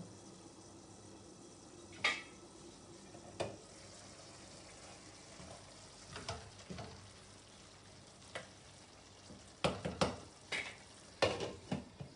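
A spoon clinking and knocking against a cooking pan and containers in scattered sharp taps, with a quick cluster of them near the end, over a faint steady background.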